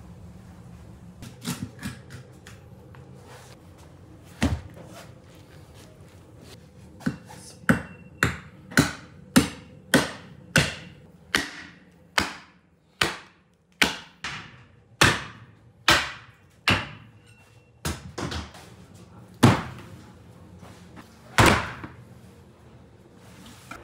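Butcher's knife chopping down through a lamb carcass to split it, a series of sharp whacks: a few scattered blows, then a steady run of about one to two a second, then a few spaced blows near the end.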